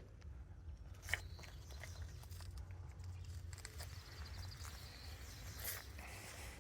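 Faint steady low rumble of background noise with a few scattered light clicks, one sharper tick about a second in, and a faint high chirping trill near the middle.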